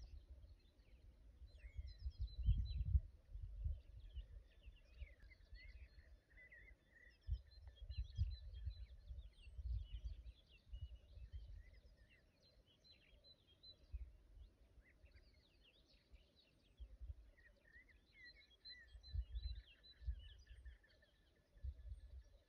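Mixed songbird chirps and trills, with short runs of repeated high notes, over irregular low rumbles on the microphone.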